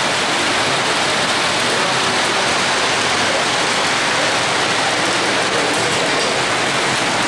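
Model trains running around a layout, a steady even whirring rattle of wheels on metal track.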